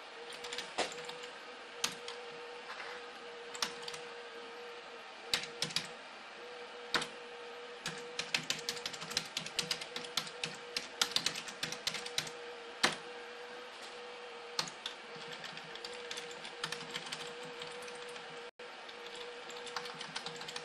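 Computer keyboard being typed on: irregular key clicks, a few scattered ones at first, then quick runs of keystrokes in the middle as a sentence is typed, over a steady faint hum.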